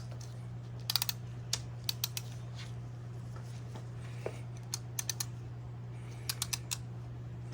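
Hand ratchet and socket clicking in short runs of a few clicks at a time, as a socket is fitted and worked on an engine motor mount bolt. A steady low hum runs underneath.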